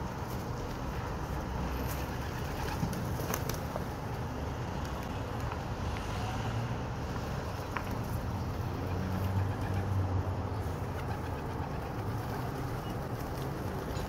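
Feral pigeons feeding on rice on a window ledge: scattered pecking taps and wing flutters with low cooing, over a steady low background rumble.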